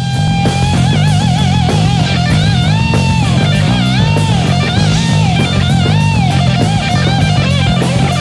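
Electric guitar solo over bass and drums in a rock band. It opens on a held note with wide vibrato, then bends notes up and back down between sustained notes.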